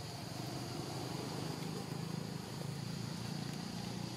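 Steady high-pitched insect chorus in tropical forest, over a low, uneven rumble.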